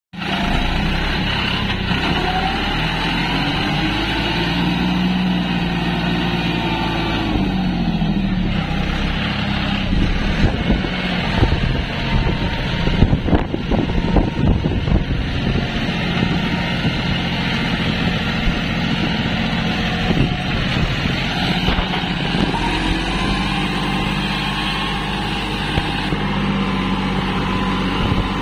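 Tractor engine running under load while its wheels churn through deep paddy-field mud, the engine note rising and falling as it is revved. Around the middle there is a stretch of irregular knocking and clatter.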